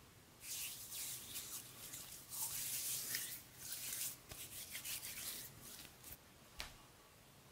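Hands rubbing together, smearing a lump of black paste over the palms and fingers: a run of soft, hissing rubbing strokes that stops about a second before the end.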